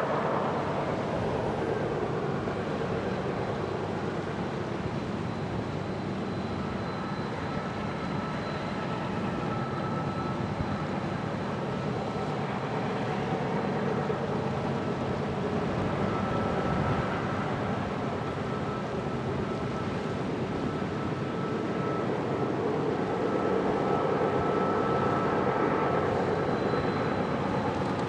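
Union Pacific diesel-electric locomotives running with a freight train, a steady engine rumble with a faint steady whine above it, growing slightly louder near the end.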